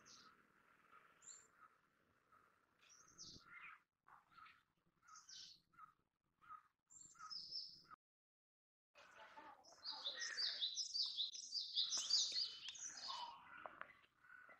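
Small birds chirping: scattered short calls at first, then a second of silence about eight seconds in, followed by a busy stretch of many overlapping chirps and twitters.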